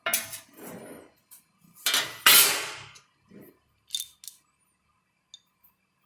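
Metal tools and parts clinking and clanking as they are handled and set down, a handful of separate knocks with a short metallic ring, the loudest about two seconds in, then a few light ticks.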